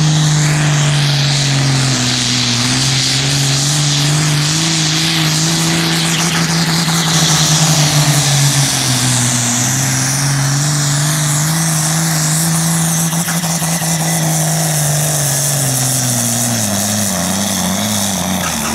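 Diesel engine of a red International pulling tractor at full throttle as it drags the weight-transfer sled, its pitch holding steady with brief dips under load, then falling away near the end as the tractor bogs down and the pull ends.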